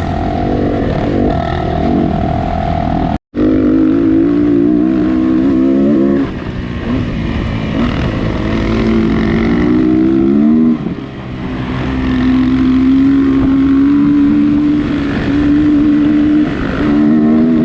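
Off-road motorcycle engine running under load, its pitch climbing in stretches and dropping back as the throttle is rolled off and on. The sound cuts out completely for a moment about three seconds in.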